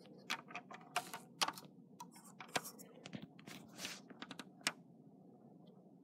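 Light, irregular clicks and taps of hands handling a 1:18 die-cast model car as its door is swung open, about a dozen over the first few seconds, then stopping.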